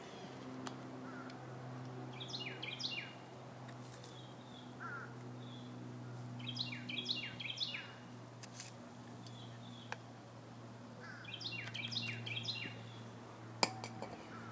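A songbird singing three short phrases of quick, down-slurred whistled notes, about four to five seconds apart, over a steady low hum. A sharp click near the end is the loudest sound.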